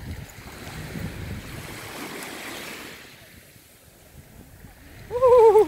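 Small waves lapping and washing up over a sandy shore, swelling over the first few seconds and then easing off. Near the end a woman gives a loud, wavering "ooh" as the cold water reaches her feet.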